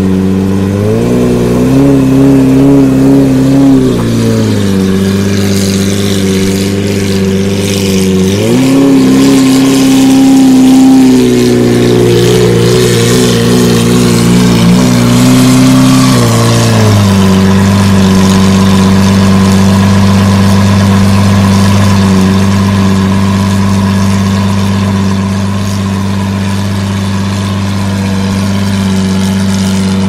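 2009 Lamborghini Murciélago's V12 on an aftermarket exhaust, idling. The revs are raised gently and let fall back three times in the first half, each hold lasting a few seconds, then the engine settles into a steady idle.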